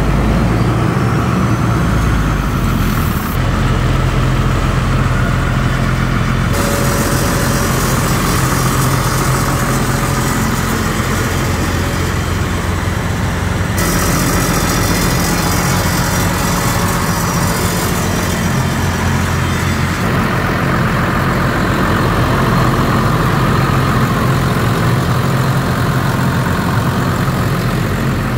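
Engine-driven 425 cfm portable screw air compressor running steadily with a low engine hum, its sound shifting in character several times.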